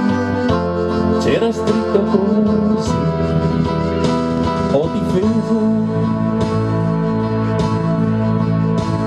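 A man singing into a microphone over a backing track with guitar, amplified through a PA.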